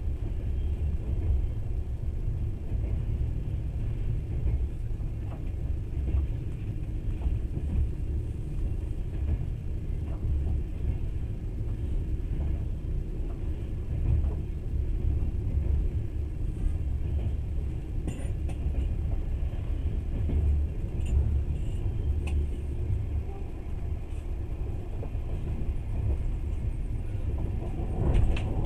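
Passenger train running at speed, a steady low rumble of wheels on rail heard from inside the carriage, with a few faint ticks and a louder knock near the end.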